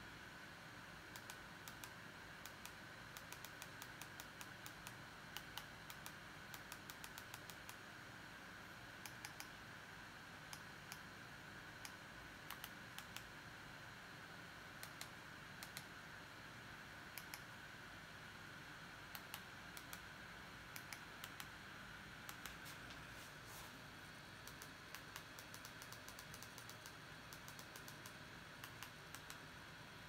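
Faint, irregular clicking of remote-control buttons being pressed, sometimes a few clicks a second, over a faint steady whine.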